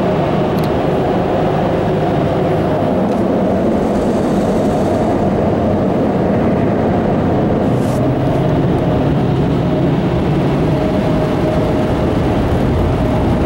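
Automatic car wash air dryer blowers running, heard from inside the car: a loud, even rush of air with a faint steady hum under it.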